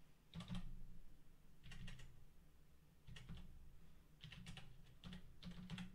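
Faint typing on a computer keyboard: a few keystrokes at a time, in about five small groups with short pauses between.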